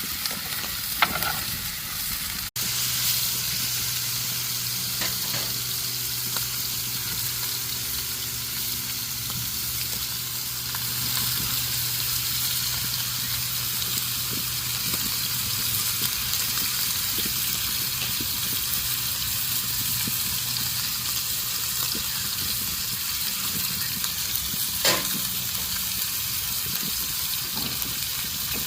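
Food frying over an open fire: a steady sizzling hiss, with a momentary dropout about two and a half seconds in and a faint low hum underneath for much of it.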